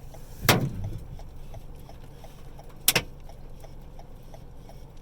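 Steady low hum of a vehicle's running engine, broken by a heavy thump about half a second in and a sharp double knock around three seconds in.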